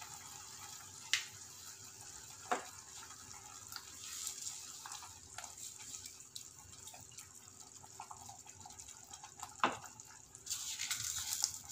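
A wooden spoon stirring a watery tamarind and spice mixture in a clay pot, the liquid sloshing softly. Three sharp knocks come through, about a second, two and a half seconds and nearly ten seconds in.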